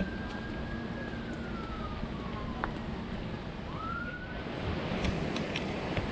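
A distant siren wailing: one thin tone rises, holds, slowly falls, then rises again about four seconds in. Wind noise on the microphone runs underneath.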